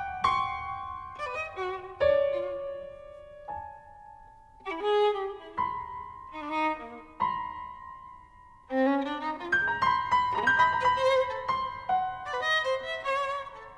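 Instrumental background music led by a violin, playing a melody of separate notes that come and go in phrases.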